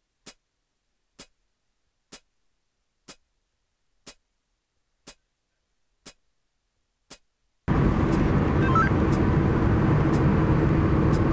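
Single sharp ticks about once a second, like a clock ticking, over silence. About two-thirds of the way in this cuts suddenly to the louder, steady road and engine noise inside a moving car's cabin.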